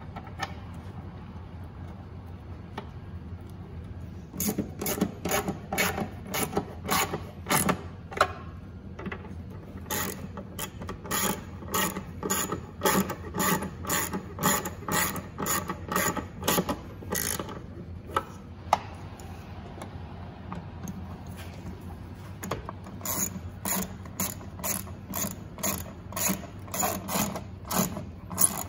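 Ratchet wrench with an extension and 8 mm socket clicking in quick back-and-forth strokes as the tail light housing's screws are driven back in. The clicking comes in three runs of several seconds each, with short pauses between them.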